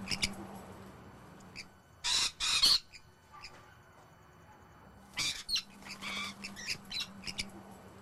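Rainbow lorikeets screeching: two loud harsh screeches in quick succession about two seconds in, another a little after five seconds, and softer short chirps and chatter in between and toward the end.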